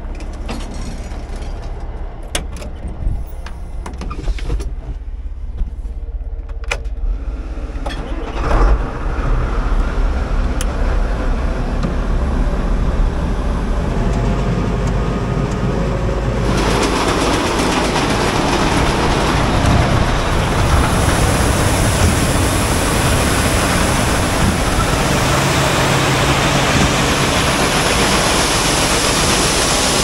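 Semi truck engine running with a steady low drone and a few rattling clicks; about halfway through, a loud steady rushing noise sets in suddenly and covers it.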